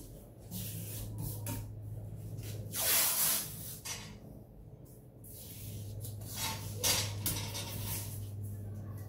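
Hands and a metal square sliding, scraping and tapping on a taped granite countertop. There is a short, loud scrape about three seconds in, smaller ones around one and a half and seven seconds, and a steady low hum underneath.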